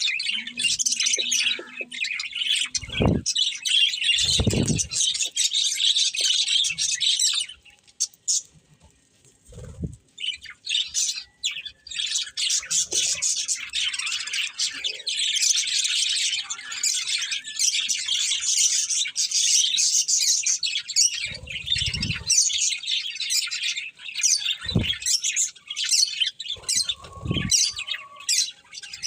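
Budgerigars chattering and warbling in dense, fast high-pitched chirps. The chatter stops for about three seconds around a third of the way in, then resumes, with a few short low thuds in between.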